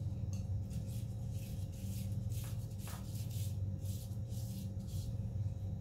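A hand in a disposable plastic glove rubs an olive-oil, rosemary and garlic paste into a raw beef rib roast, making soft, repeated rubbing strokes. A steady low hum runs underneath.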